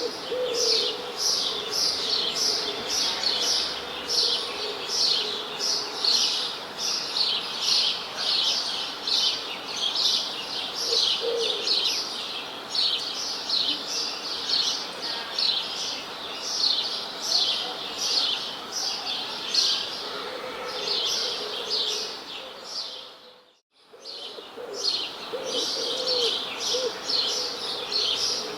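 Songbirds chirping in a steady, busy chorus of quick high chirps, about two a second, with a lower wavering call now and then. About three-quarters of the way through the sound fades out almost to silence for a moment, then the chirping resumes, as at a loop point in the recording.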